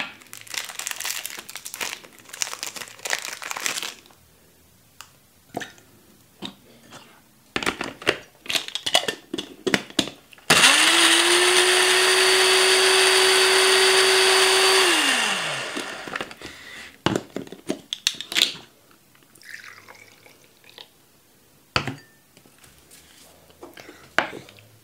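Countertop blender blending a jug of juice for about four seconds: the motor spins up quickly to a steady whine, then winds down and stops. Scattered rustles, knocks and clicks of things being handled come before and after.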